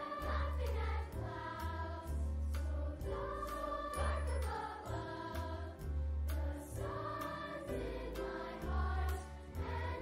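Choir singing over instrumental backing music, with a pulsing bass line and light regular percussion.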